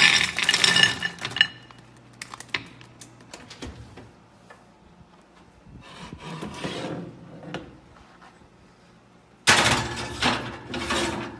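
Candy pumpkins poured from a bag clatter into a ceramic pie dish, fading out about a second and a half in, followed by a few light clinks. Near the end the filled dish goes onto the metal oven rack with a longer burst of rattling and scraping.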